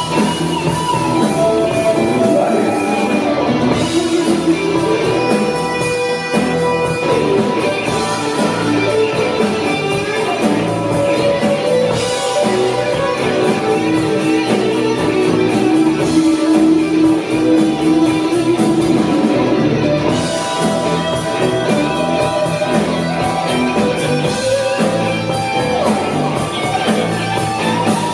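A rock band playing a song live, with guitar to the fore over a steady drum beat; a long note is held through the middle.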